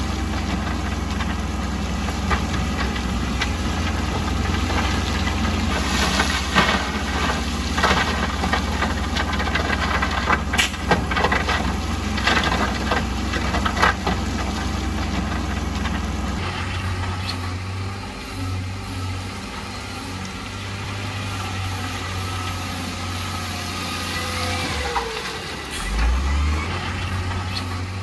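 Diesel engines of heavy earthmoving machinery running steadily, with scattered knocks and clatter over the first half. About halfway through the sound changes abruptly and the engine is quieter, with a short falling whine near the end.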